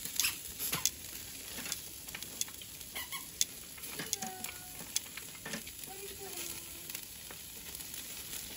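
Meat, sausages and vegetables sizzling over charcoal on a small tabletop grill, a steady hiss broken by several sharp clicks and crackles as metal tongs turn the food on the wire grate.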